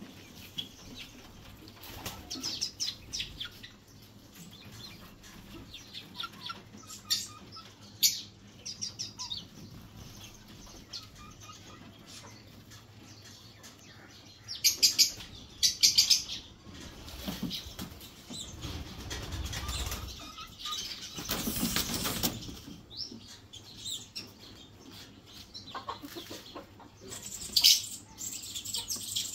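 Caged pigeons and chickens in wire-mesh aviary pens: scattered short, high chirps and calls, with bursts of wing flapping. The loudest flapping comes a little past the middle.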